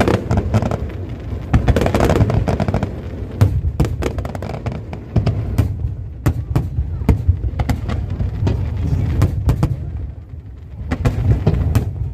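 Fireworks display going off: many sharp bangs and crackles at irregular intervals over a low, continuous rumble of bursting shells.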